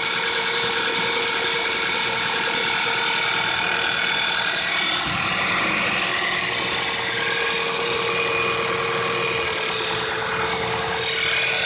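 Volkswagen 2008 Passat 2.0 TSI turbocharged four-cylinder engine idling steadily with a ticking noise. The owner has ruled out the tensioner, water pump and oil pump, and suspects the camshaft.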